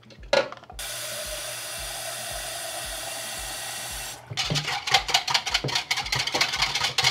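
A sharp knock near the start, then a kitchen tap running steadily into a plastic measuring jug for about three seconds. The tap stops, and a metal whisk beats quickly in the jug, rattling against its sides as stock is mixed.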